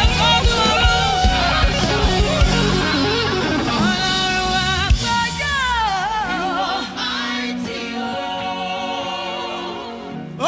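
Gospel worship music: a singer's voice wavering over sustained chords. A steady drum beat drops out about two and a half seconds in, and the music thins and fades toward the end.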